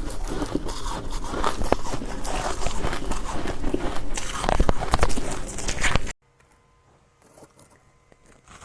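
Soft, powdery freezer-frost ice being bitten and chewed close to the microphone: a dense run of crisp crunches with a few sharper bites about four to five seconds in. The sound cuts off abruptly about six seconds in, leaving only faint small sounds.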